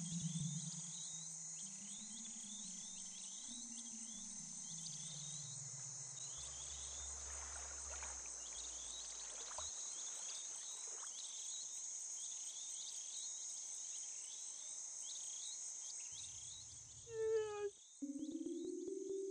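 Insect chorus: a steady high buzz with quick chirps repeating throughout, under low drawn-out tones that slide and step down in pitch over the first half. Near the end a short run of quick rising notes gives way to a tone that climbs steadily.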